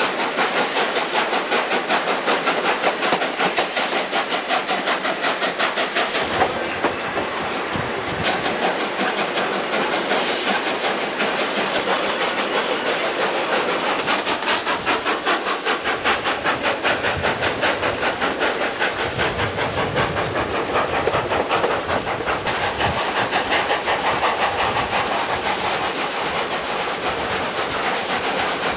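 Ex-South Australian Railways broad-gauge steam locomotives working a train, their exhaust beating in a quick, steady rhythm with hiss, over the rumble and clatter of carriage wheels on the rails.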